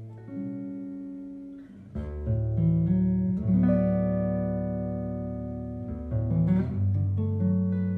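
Archtop guitar, in a tuning with a low C and low G, played through a Henriksen The Blu amplifier and The Ray cabinet. It plays a slow solo chord-melody ballad: full chords with deep bass notes ring out and fade, and a new chord comes every second or two.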